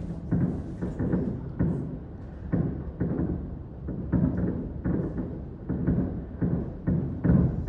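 Fireworks shells bursting overhead: a rapid, irregular series of low booms, several a second, none standing out from the rest.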